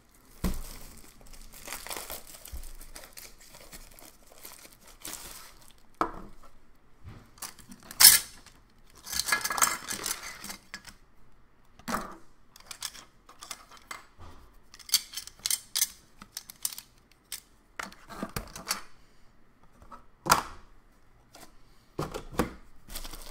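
Thin plastic bag around a stack of rigid plastic card holders (top loaders) being handled, crinkling and rustling in irregular bursts. There are scattered sharp clicks and knocks, the loudest about 8 seconds in.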